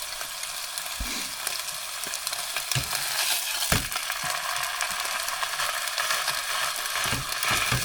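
Burgers sizzling in a frying pan on a portable camping stove, a steady frying hiss. A few short low knocks, about a second in, around three to four seconds in, and near the end.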